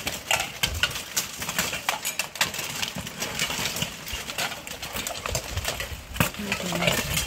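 Steel plate armor and weapons clanking as armored fighters grapple and strike, a steady run of sharp knocks and clanks.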